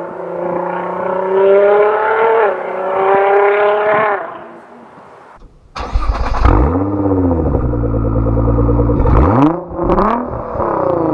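Tuned Nissan GT-R's twin-turbo V6 with a full aftermarket exhaust accelerating hard. Its pitch climbs, drops at a gear change about two and a half seconds in, climbs again, then fades away. Then, heard close up at the titanium exhaust tips, the engine is loud and deep and is revved about four times, each rev rising and falling.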